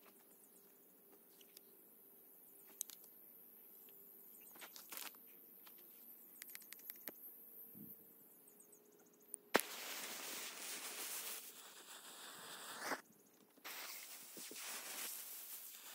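A few faint clicks, then about nine and a half seconds in a sharp crack as the fuse catches, followed by the steady hissing sputter of the burning fuse, which breaks off briefly and resumes near the end.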